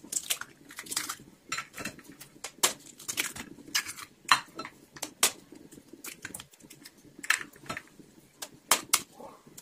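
Eggs being cracked open with a metal knife blade over a plastic bowl: many sharp, irregular taps and cracks of the blade on the shells as one egg after another is broken.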